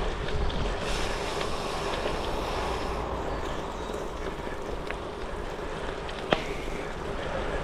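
Goodyear Connector gravel tyres rolling over a rough trail, a steady rumble and hiss of the tyres on the ground mixed with wind on the microphone. One sharp click a little past six seconds in.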